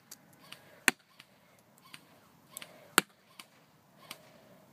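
JG Works M16A1 airsoft electric rifle firing single shots on semi-automatic: two loud sharp snaps about a second in and three seconds in, with lighter clicks in between.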